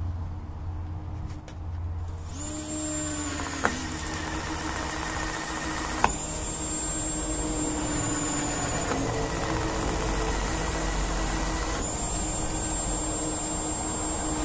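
Corded electric drill running steadily from about two seconds in, boring drain holes through the rubber of a car tyre. Its whine shifts briefly a few times with small clicks as the bit is worked.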